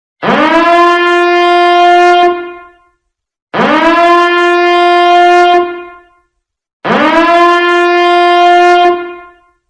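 A blown horn sounded three times: three long blasts of about two and a half seconds each. Each swoops up in pitch at the start, holds one steady note, and then dies away.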